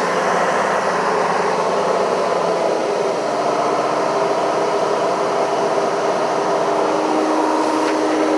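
John Deere 6600 combine running steadily while harvesting corn: a constant whir with several steady tones that holds without a break.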